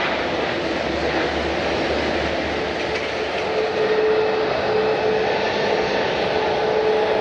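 Jet airliner engines running: a steady, loud rush of engine noise, with a steady whine coming in about three and a half seconds in.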